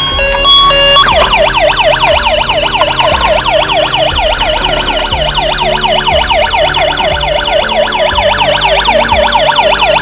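Toy police car's electronic siren wailing in a fast, repeating up-and-down sweep, starting about a second in. Background music plays underneath.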